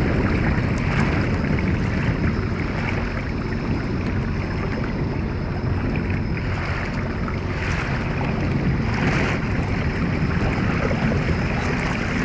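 Steady rumble of a small boat under way, with wind on the microphone and water washing and splashing along the hull.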